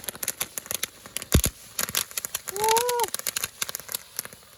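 Fireworks crackling: a dense run of sharp pops and snaps, with one deeper bang about a second and a half in. A person whoops near the middle.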